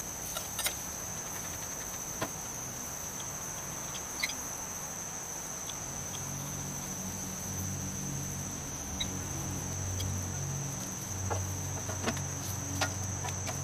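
Steady high-pitched insect chorus in summer trees, with a few light clicks of utensils on a plate and grill. A low hum comes up under it about halfway through.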